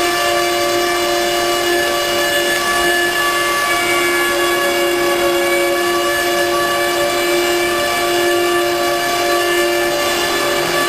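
Spindle motor of a 6090 CNC router running steadily at high speed: a constant whine of several pitches over a hiss.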